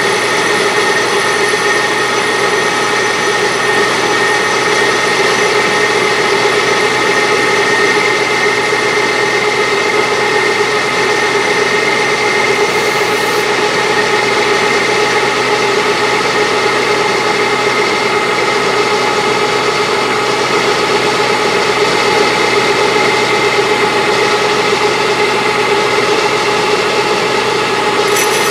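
Metal lathe running, taking a facing cut across a cast aluminium disc: a steady machine sound with several constant tones from the lathe's drive.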